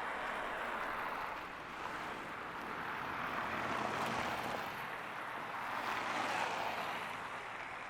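Street traffic going past: tyre hiss that swells and fades about three times, with a faint engine hum near the middle.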